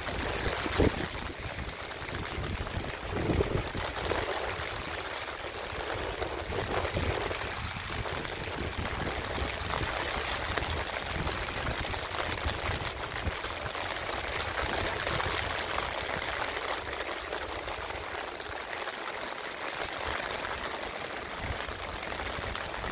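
Steady rain falling, a continuous even hiss of water with a few low bumps in the first few seconds.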